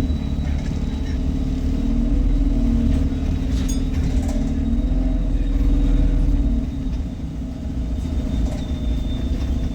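Inside a moving bus: engine and drivetrain running under a steady low rumble, with a low humming tone that wavers up and down and fades about two-thirds of the way through, and a faint steady high whine above it.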